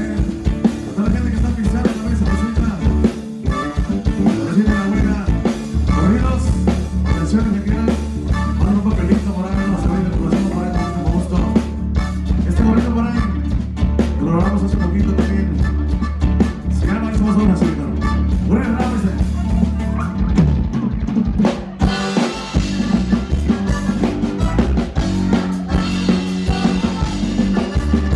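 Live band playing corridos through a PA system: drum kit, electric guitars and bass with a singer.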